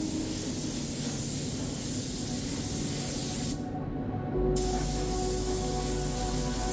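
Compressed-air spray gun spraying weldable bodywork primer onto bare car-body metal in a steady hiss. The hiss stops for about a second, three and a half seconds in, as the trigger is released, then starts again.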